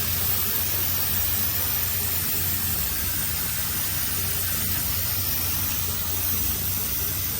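Shop air compressor running steadily: a constant low hum under an even hiss.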